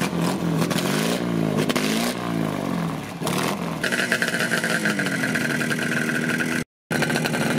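Vintage BMW motorcycle engine running, revved up and down a couple of times. About four seconds in, a second vintage motorcycle engine takes over, running steadily with a high whine.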